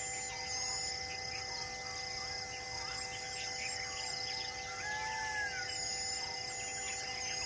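Outdoor bird chorus: many birds chirping and whistling with short rising and falling calls and one longer arching whistle about five seconds in, over steady droning tones.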